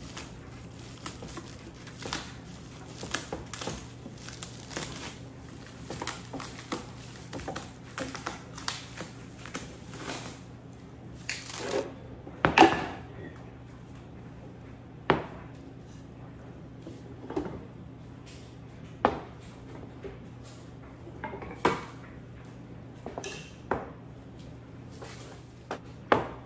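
Hard household objects being handled and set down, making irregular clicks, knocks and clatters. The loudest clatter comes about halfway through, followed by several sharp single knocks.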